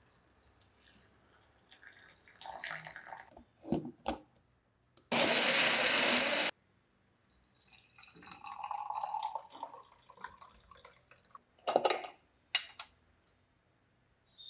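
Water poured into a personal blender cup, two short knocks, then the blender running for about a second and a half and stopping abruptly. Later, juice is poured through a metal mesh strainer into a glass jar, and there is a sharp clack near the end.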